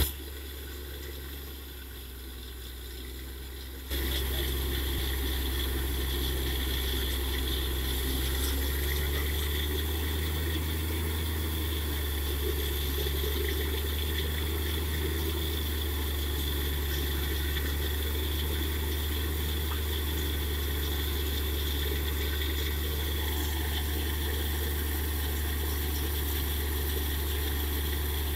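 Borewell drilling rig running steadily with a constant low engine hum as it drills. The noise steps up louder about four seconds in and then holds steady.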